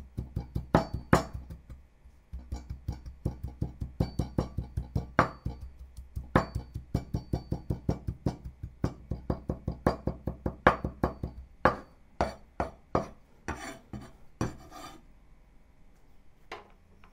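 Chinese cleaver chopping and mincing ginger on a wooden cutting board: rapid knocks, about four a second, the blade striking the board. The knocks stop about thirteen seconds in, after a few softer, scraping strokes.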